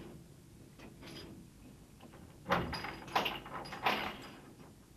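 A door being opened by its round knob: the latch and door give three sharp clicks and knocks, about two and a half, three and four seconds in.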